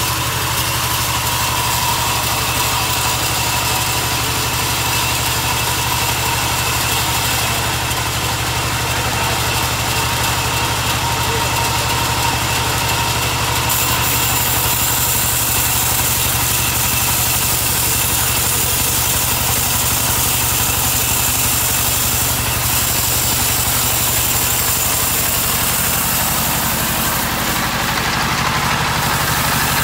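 Band sawmill running, its blade cutting lengthwise through a log: a steady machine hum with a high hiss that grows louder about halfway through.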